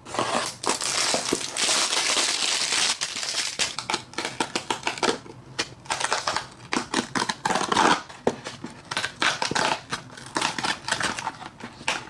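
A small cardboard toy box being handled and torn open: a dense crinkling rustle for the first few seconds, then the perforated cardboard tear strip peeled off in a run of sharp crackles and rips.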